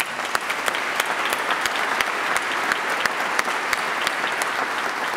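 Audience applauding: many hands clapping at once, breaking out suddenly and holding steady.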